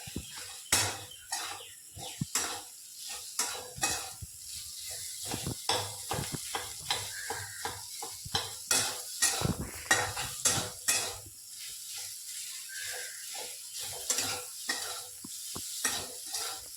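A spoon scraping and knocking in a kadhai as boiled potatoes are stirred into spiced onion masala frying in mustard oil, with a light sizzle underneath. The strokes are irregular and thin out over the last few seconds.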